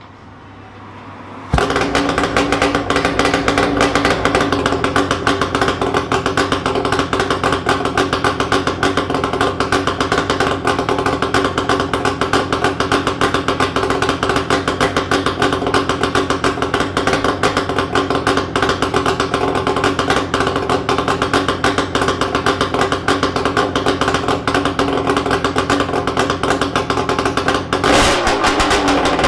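Yamaha RZ250's two-stroke parallel twin, running through a Sugaya collector expansion chamber with its silencer removed, so it is very loud. It starts abruptly about a second and a half in and idles steadily with a rapid popping beat, then is revved near the end, the pitch rising and falling back.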